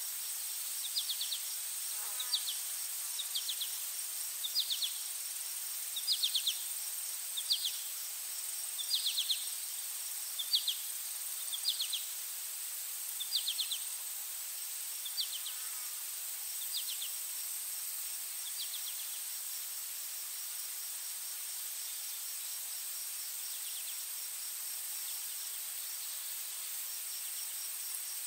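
Insects chirping: a steady high-pitched trill under short chirps of a few quick pulses, repeating about once a second and dying away about two-thirds of the way through.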